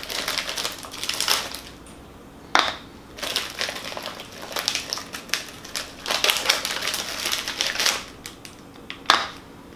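Plastic syringe wrappers crinkling and tearing open as syringes are unwrapped by hand, in irregular spells, with a sharp click about two and a half seconds in and another about nine seconds in.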